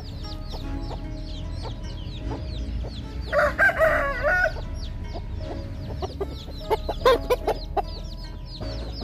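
Backyard chickens calling: a rooster crows once, a short wavering crow about three seconds in, then a few loud short clucks around seven seconds in, over steady high chirping.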